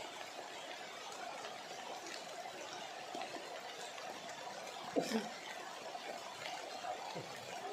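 Steady rush of a flooded, fast-flowing river, with one brief louder sound about five seconds in.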